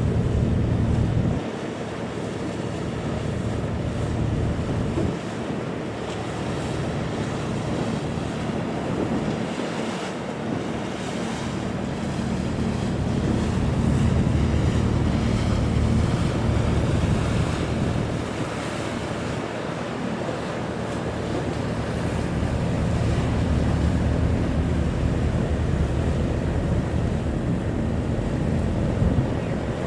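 Wind buffeting the microphone over the wash of sea waves, swelling and easing every few seconds, with a low steady hum underneath.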